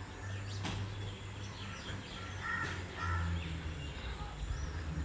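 A crow cawing twice in quick succession about two and a half seconds in, over a low steady rumble.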